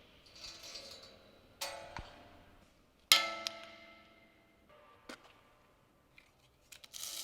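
Metal objects struck for their sound, each hit ringing out with several tones and an echoing decay. Two loud strikes about a second and a half apart, with fainter taps before and after.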